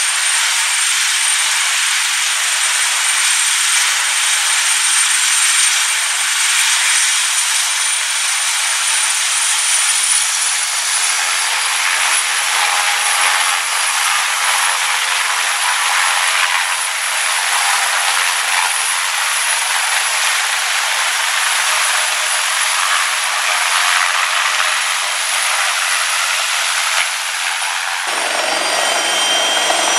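Airbus H225M helicopter's twin turboshaft engines whining over a loud, steady rush of rotor and exhaust noise as it lifts off the deck, the whine rising slightly in pitch about ten seconds in. Near the end the sound changes abruptly to a lower mix of turbine whines.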